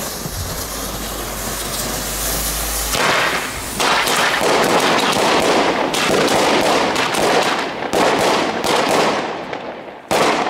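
Firework compound of Weco flashbang firecrackers and two Lesli single-shot aerial shells, set off together by red visco fuse. The burning fuse gives a steady hiss for about three seconds, then the flashbangs and shells go off in a rapid string of sharp bangs, with one more loud bang near the end.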